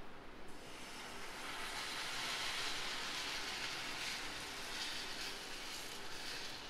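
Tamarind water frothing and sizzling in a pan of hot oil with garlic: a steady hiss that swells about half a second in and holds.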